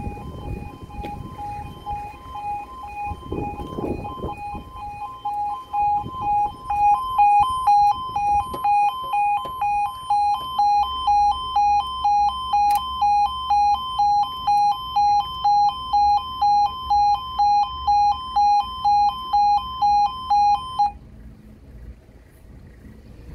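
Level crossing warning alarm sounding its two-tone pulse about twice a second as the crossing closes. It grows louder about six seconds in and cuts off suddenly near the end.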